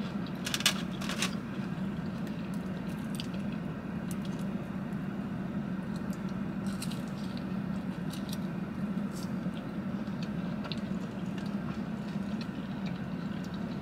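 Close-up eating sounds of a breadstick dipped in marinara sauce: soft, wet biting and chewing with small crackly clicks, the sharpest two about a second in, over a steady low hum.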